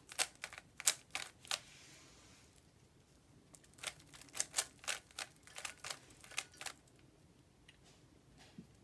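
Rubik's Cube being turned by hand, its plastic layers clicking and clacking in quick runs, with a pause of about two seconds partway through.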